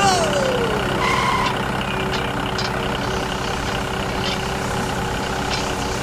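Steady engine-like motor hum of the miniature tractor, several held tones at an even level throughout. A falling glide sweeps down in the first second, and a short higher tone sounds about a second in.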